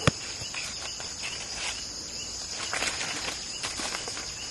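Steady high-pitched chorus of crickets and other insects. A single sharp click right at the start is the loudest sound, and soft rustles and scuffs come around three to four seconds in.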